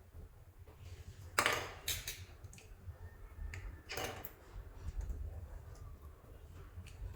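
Hands working soft modelling clay: short crackly squishes and sticky clicks, the loudest about a second and a half in and again at about four seconds.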